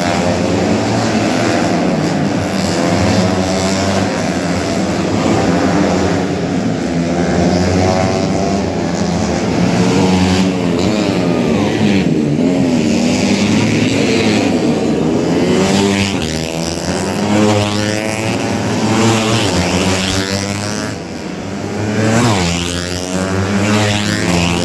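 Several tuned 125cc four-stroke underbone racing motorcycles running at high revs, their engine notes overlapping and rising and falling in pitch as they pass by.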